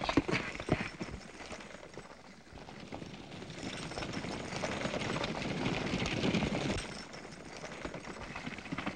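Horses galloping, with the rattle of a runaway horse-drawn buggy over rough ground: uneven hoof beats and wheel knocks, busiest in the first second.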